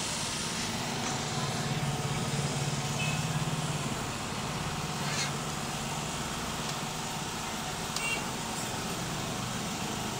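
A steady low mechanical hum, with two light clicks about five and eight seconds in from a photocopier's multipurpose (bypass) tray and paper being handled.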